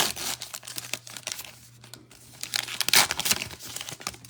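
A trading card pack's wrapper being torn open and crinkled, in irregular rustling bursts, loudest at the start and again about three seconds in.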